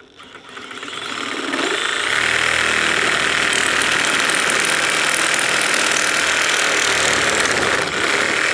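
DeWalt cordless reciprocating saw cutting through PVC drain pipe, its blade stroking through the plastic. It starts up and builds over the first couple of seconds, then runs steadily and loudly.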